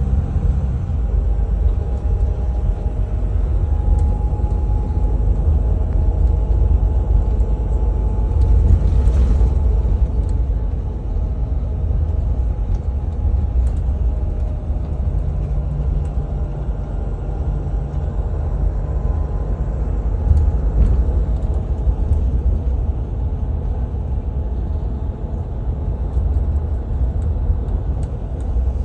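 Inside a moving bus: a steady low rumble of engine and road noise, with a faint whine over it and a brief hiss about nine seconds in.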